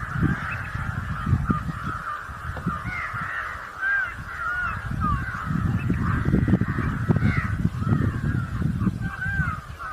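A chorus of birds calling, many short curved chirping calls overlapping, over an uneven low rumble that swells and fades.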